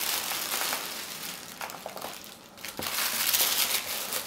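Tissue paper rustling and crinkling as a hand parts it inside a cardboard gift box. The rustle drops off briefly a little past halfway, then comes back louder.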